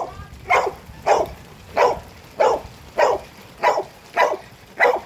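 A dog barking steadily, about nine barks spaced roughly half a second apart, over a light hiss of rain.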